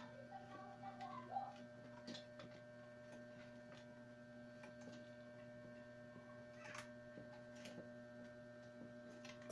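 Steady electrical hum with a few faint clicks and rustles of wicker strands being woven in and out around the spokes of a basket base.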